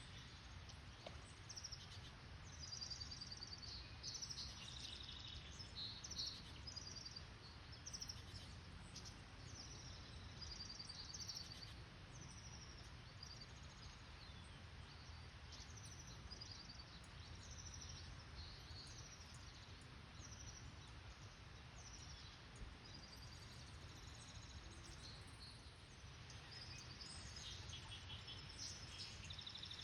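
Faint chorus of small birds chirping, with many short high calls, some in quick repeated notes, throughout, over a steady low rumble.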